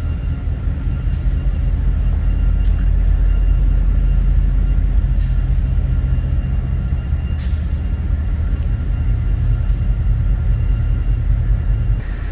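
Strong wind heard from inside a ferry's glass-walled lounge: a loud, steady low rumble, with a few faint steady high tones above it.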